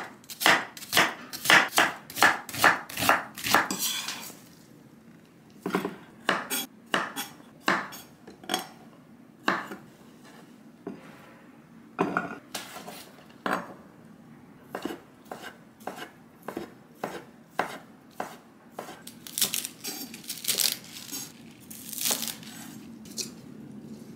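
Chef's knife chopping an onion on a wooden cutting board: a quick run of sharp strokes for the first four seconds, then slower, scattered strokes.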